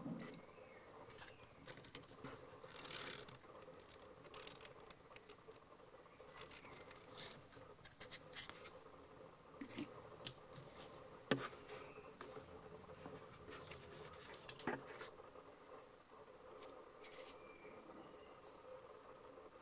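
Faint handling noise from clear plastic ant boxes: irregular light clicks, taps and short scrapes, the loudest about eight and eleven seconds in, over a faint steady hum.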